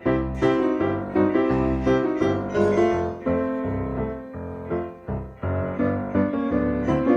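Piano music accompanying the cartoon: bass notes and chords struck at a steady, lively pace, about two strikes a second.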